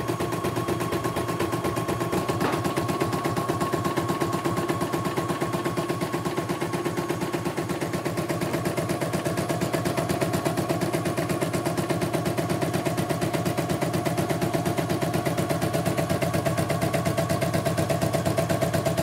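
CNY E900 portable computerized embroidery machine stitching, its needle mechanism clattering in a rapid, even rhythm. It is running smoothly, with no hitches.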